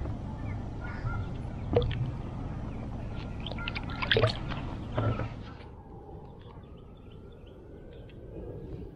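A small largemouth bass splashes into the lake water as it is released, about four seconds in, with a few knocks from handling before it.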